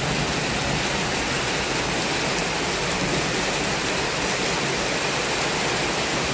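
Steady rain falling hard, an even hiss with no single drops or thunderclaps standing out.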